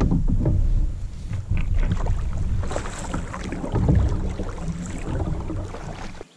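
Kayak paddle strokes dipping and splashing in the river water. A loud low rumble on the camera microphone, most likely wind, runs underneath and cuts off abruptly near the end.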